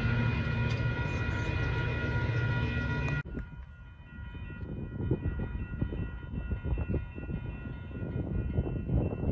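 Metra diesel locomotive horn sounding a steady multi-note chord over the engine's low rumble as the train approaches; it cuts off abruptly about three seconds in. After that, gusty wind buffets the microphone.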